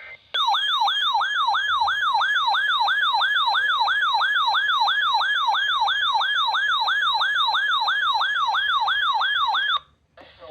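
Electronic emergency alert tone: a siren-like warble sweeping down and back up about three times a second, starting sharply and cutting off suddenly near the end. It is the attention signal that opens a severe thunderstorm watch broadcast.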